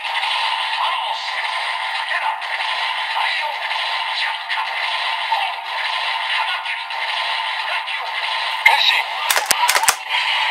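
Toy Kamen Rider transformation belt playing its electronic standby music with a synthetic voice through its small, tinny speaker. Near the end, a few sharp plastic clicks come as the belt is worked.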